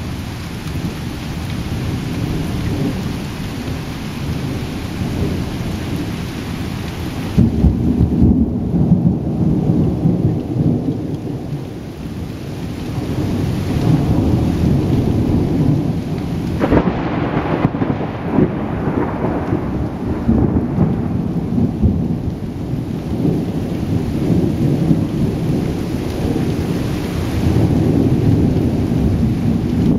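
Thunder rumbling continuously over steady rain. A louder burst of thunder comes about a quarter of the way in, and a sharp thunderclap just past halfway rolls out into a long rumble.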